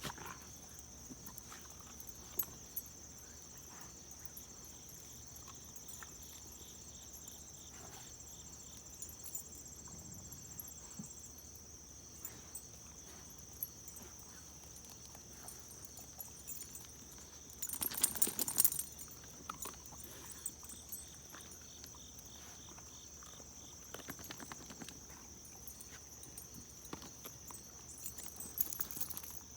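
Steady high-pitched insect chirring, with scattered light taps and a brief louder scuffle about eighteen seconds in.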